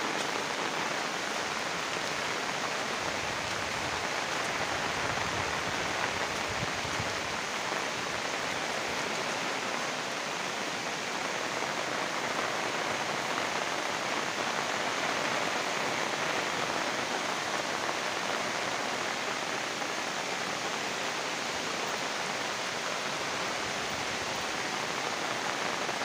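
Steady rain falling on dense forest foliage: a constant, even hiss with no breaks.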